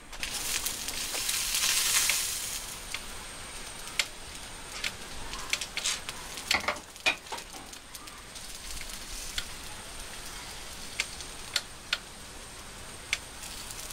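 Hot smoker pot on a gas stove sizzling and hissing, with a louder rush of hiss in the first couple of seconds. Light clicks and taps come as pieces of raw beef intestine are set on the wire rack.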